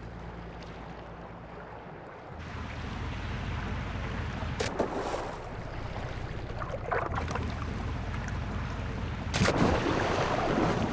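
Fishing boat at sea: a steady low engine hum under the wash of water and wind. A few sudden louder noises break through, the loudest about nine and a half seconds in.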